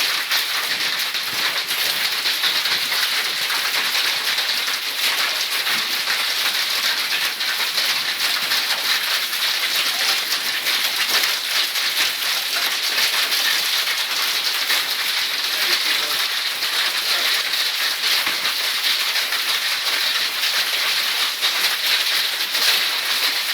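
Heavy hail falling: a dense, steady clatter of countless small impacts.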